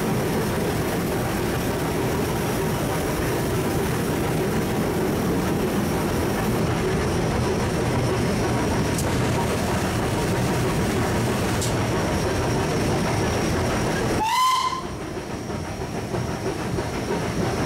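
Steady running noise in the cab of Southern Railway S15 class steam locomotive 847 on the move. About fourteen seconds in there is a brief, slightly rising whistle blip, and the running noise is a little quieter after it.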